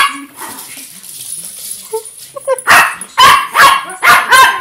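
Dog barking: after a quieter stretch with a couple of faint yips, a quick run of five sharp barks, about two a second, over the last two seconds.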